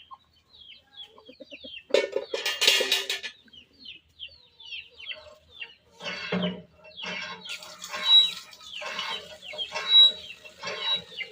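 Domestic chickens calling: a loud squawk about two seconds in, then repeated clucking. A run of short, high falling chirps sounds through the first few seconds.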